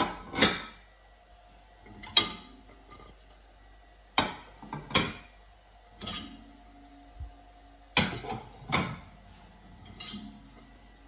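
Ceramic plates being handled in a dishwasher's wire rack, clinking against each other and the rack in separate sharp knocks, about ten of them spaced a second or two apart.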